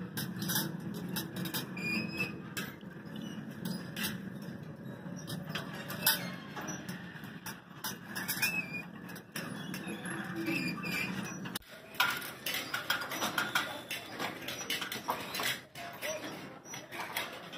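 Mechanical dinosaur skeleton puppets clicking and clattering irregularly as their jointed parts and cables move, over a steady low hum. The sound changes abruptly about two-thirds of the way through, after which the clicks come thicker.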